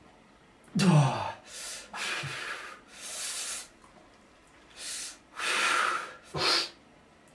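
A man's hard, shaky breathing as he sits in an ice-cold bath: a string of sharp gasps and forceful exhales, with a short falling groan about a second in.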